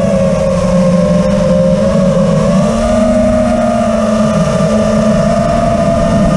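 FPV drone's electric motors and propellers running in flight, as picked up by the onboard camera, a steady pitched drone whose pitch rises a little about three seconds in.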